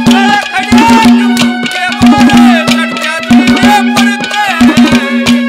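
Haryanvi ragni instrumental interlude: hand drums beat a fast rhythm under a steady held drone note and a melody that slides up and down in pitch.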